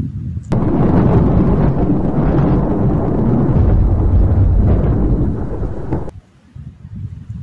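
Loud thunder rumbling. It breaks in suddenly about half a second in and stops abruptly about six seconds in.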